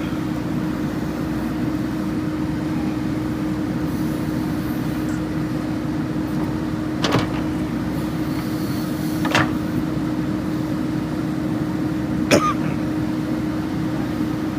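JCB 3DX backhoe loader's diesel engine running steadily, with three sharp knocks about seven, nine and twelve seconds in.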